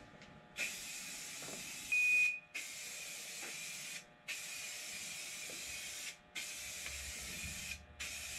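Aerosol spray can of high-build primer spraying in five bursts of one to two seconds with short gaps between them. The hiss carries a thin high whistle, which turns briefly loud and shrill about two seconds in.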